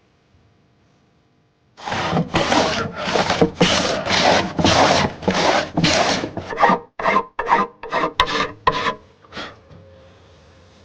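A hand tool scraping wood in back-and-forth strokes, about two a second, starting about two seconds in; near the end the strokes grow shorter and choppier, then stop.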